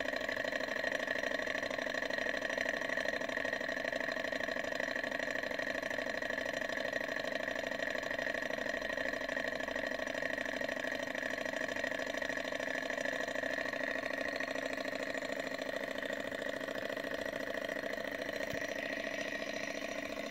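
Model thermoacoustic (lag) engine running steadily, its piston working in a glass cylinder and turning a small metal flywheel, giving an even hum of several pitches at once.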